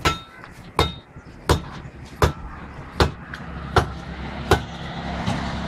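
Sharp knocks repeating at a steady rhythm, about one every three-quarters of a second and about eight in all, over a rising background din.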